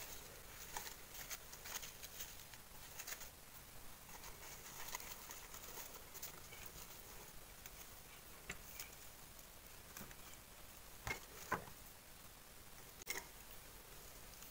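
Faint rustles and light taps of cut cosmos stems and fingers moving against sketchbook paper, with a few sharper clicks about three-quarters of the way through.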